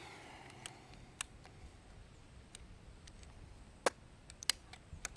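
Scattered light clicks and taps of small objects handled on a wooden bench. The sharpest click comes about four seconds in, and a quick run of smaller clicks follows near the end.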